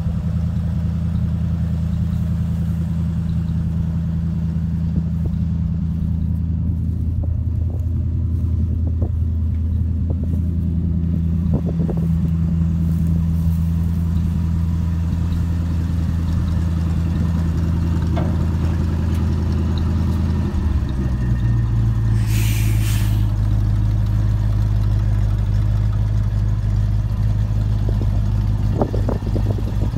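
1968 Chevrolet C60 grain truck's engine running steadily. About twenty seconds in its note changes abruptly to a different steady pitch, and a short hiss follows a couple of seconds later.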